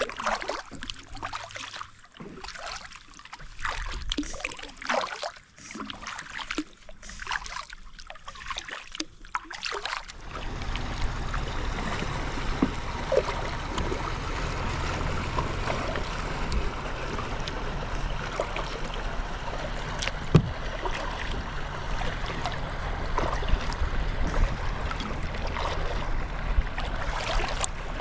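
Kayak paddle dipping into lake water in irregular splashes and drips for the first ten seconds or so. Then a steady rushing of water and air noise with a low rumble takes over and runs on.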